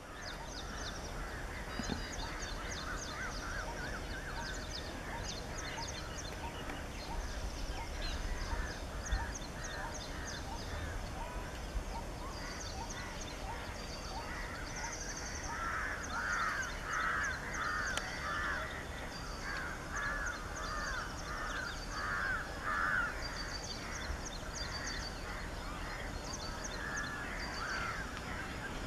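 Birds calling: runs of rough mid-pitched notes, several a second and loudest in the middle, over quicker thin high-pitched notes, with a steady low rumble underneath.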